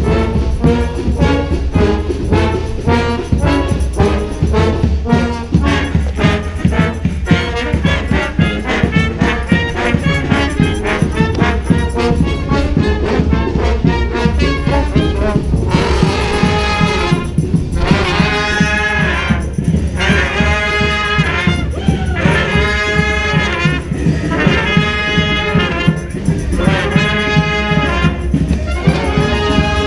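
Street brass band playing a New Orleans-style brass-band tune, with horns and percussion. About halfway through, the horns shift from quick riffs to long held chords that swell and fall about every two seconds, while the drums keep going underneath.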